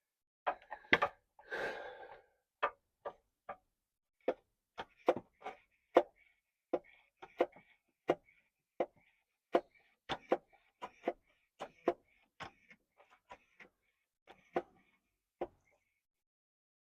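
Hand oil pump being stroked to push gear oil into a Land Rover Discovery 3's rear differential: a long run of short, sharp clicks at an uneven pace of about two a second, with faint high squeaks between the strokes.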